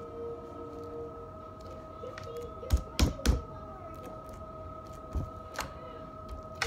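Green glitter slime being worked by hand on a wooden tabletop, giving a series of sharp pops and taps. The loudest three come close together about three seconds in, with a few more later, over a faint steady hum.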